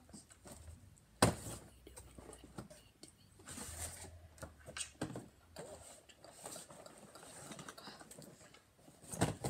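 Cardboard Funko Pop boxes being handled and set down on a wooden table: a sharp knock about a second in, then scattered softer taps and rustling.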